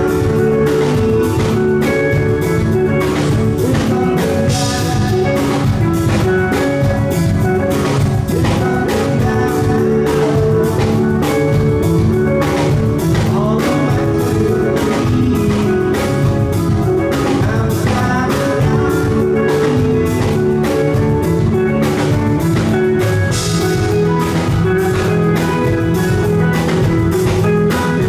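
Live rock band playing: electric guitar, bass guitar and drum kit together, with a dense, steady drum beat under sustained guitar notes.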